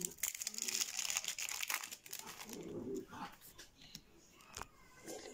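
Foil booster-pack wrapper crinkling and crackling as it is handled, densest for about the first two seconds. After that come softer rustles and ticks of trading cards being shuffled by hand.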